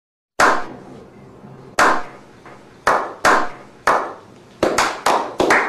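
A slow clap: a few men's hand claps with a ringing echo, starting about half a second in with single claps over a second apart and speeding up into quick clapping near the end.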